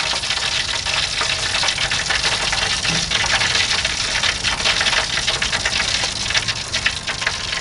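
Fat and juices from rotisserie turkey breasts sizzling in a foil drip pan over the lit burners of a propane gas grill: a steady, dense crackle.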